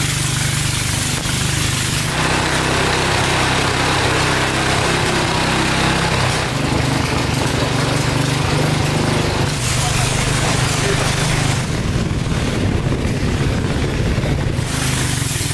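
A small river boat's engine running steadily, with rushing water and wind noise that changes in strength several times.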